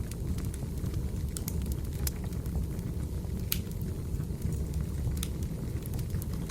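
Wood fire crackling: scattered sharp pops and snaps, a few a second, over a steady low rumble.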